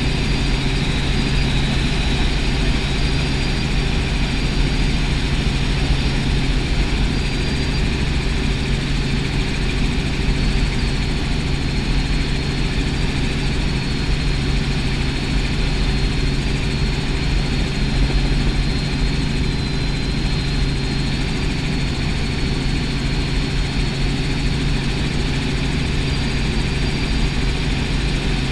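Steady cabin drone of a light helicopter in cruising flight: engine and rotor noise, with a faint high whine running over it.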